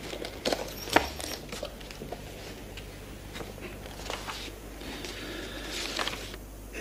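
A small diary being handled: two small clicks about half a second and a second in, then soft rustling of paper pages being turned.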